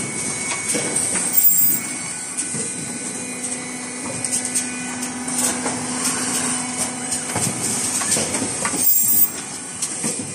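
Automatic N95 cup mask making line running: a steady mechanical din full of quick clicks and knocks from its moving parts, with a steady hum for a few seconds in the middle and louder swells about a second and a half in and near the end.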